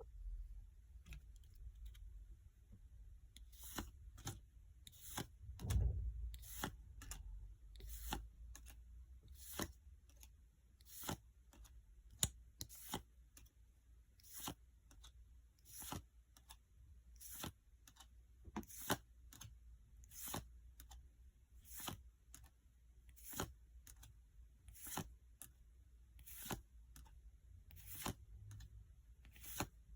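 Yu-Gi-Oh! trading cards being handled and gone through one by one, a short crisp snap about once a second as each card is flicked or laid down.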